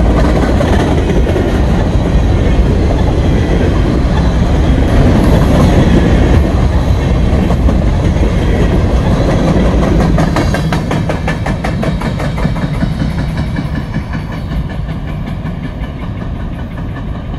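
Covered hopper cars of a freight train rolling past close by, a heavy steady rumble with wheel clatter. About ten seconds in the rumble eases and a quick, even clicking of wheels over the rail joints stands out as the end of the train passes and draws away.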